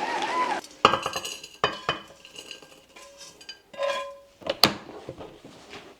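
Dishes and metal utensils clinking and knocking: a string of sharp clinks, some with a short ringing tone, the loudest about four and a half seconds in.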